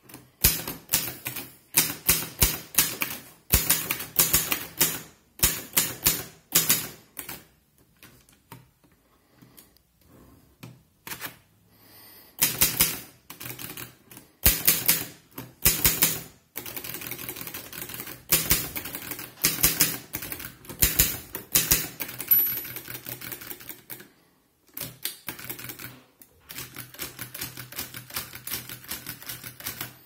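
Wanderer Conti 200 manual portable typewriter being typed on: runs of quick key strikes, the typebars clacking against the platen, broken by a few short pauses.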